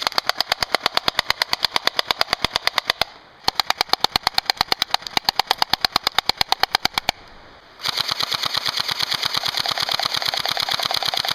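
Cyma CM022 AK47 electric airsoft rifle (AEG with a plastic gearbox) firing on full auto: three long bursts of rapid, evenly spaced shots, with short breaks a little after three seconds in and again around seven seconds in.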